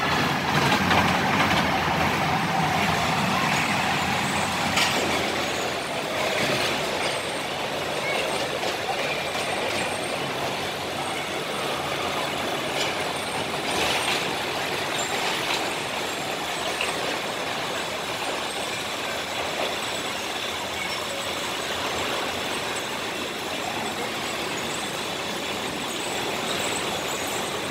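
Children's roller coaster train running on its steel track, loudest in the first few seconds as it passes close, then a steady rumbling noise with a few sharp clacks.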